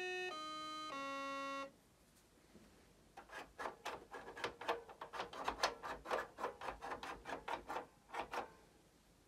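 Bontempi Memoplay 26 electronic organ playing a few held notes that step down in pitch and stop about two seconds in. After a short pause comes a quick, uneven run of short clicks, about three to four a second for some five seconds, as the organ's memory buttons are pressed.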